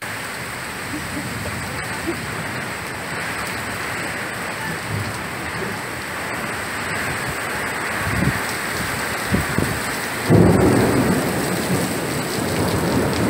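Steady heavy rain that begins suddenly, with a few low rumbles of thunder past the middle and a louder peal of thunder swelling near the end.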